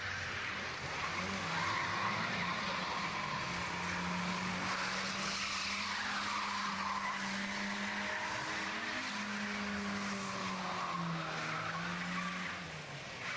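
Car engine held at high revs while its tyres squeal and skid on tarmac, as a small hatchback slides around in a car park. The engine note dips briefly partway through and drops away near the end.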